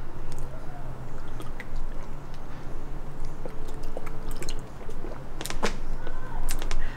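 A person gulping water from a plastic bottle, with a few sharp crackles of the plastic in the second half.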